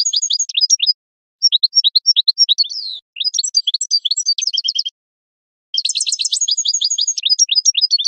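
European goldfinch singing: a rapid, high twittering song delivered in bursts of quick notes, with short pauses between the bursts.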